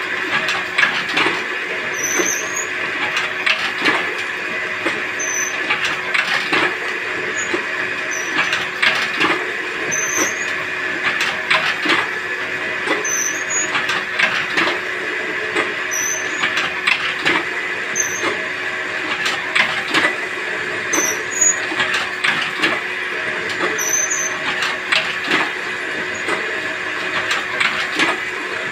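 Paper plate (thali) making machine running steadily with a constant hum, pressing plates in a repeating cycle: a knock and a short high squeak roughly every two seconds.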